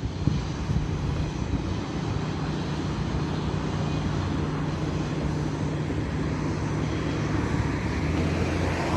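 Steady low engine drone with a constant hum. It grows louder and brighter in the last second or so as the source comes closer.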